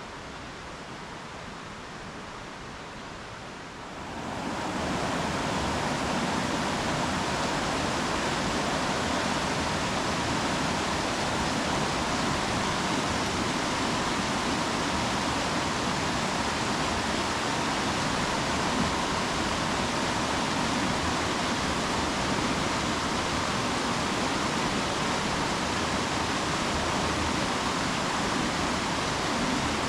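Mountain stream rushing steadily over rocks, growing much louder about four seconds in and then holding steady.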